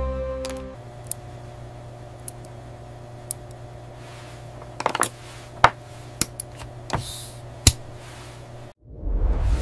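Tweezers and small tools clicking against watch parts: about a dozen sharp, irregular ticks over a low steady hum. Music fades out in the first second, and a whoosh starts near the end.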